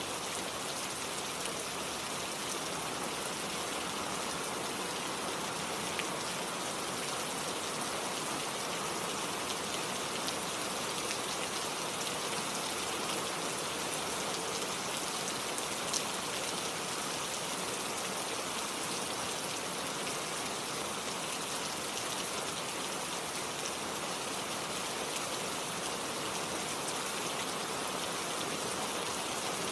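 Steady rain falling together with a flowing stream: an even wash of water noise with fine scattered drop ticks and one sharper tick about halfway through.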